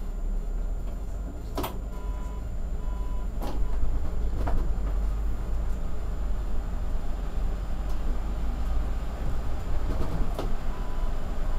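City bus driving, heard from inside the cab: a steady low engine and road rumble, with a few sharp knocks and rattles and some short high beeps.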